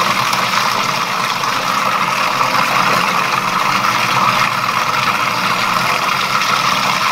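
Electric food processor motor running steadily, grinding Spanish mackerel flesh with ice into fish-ball paste.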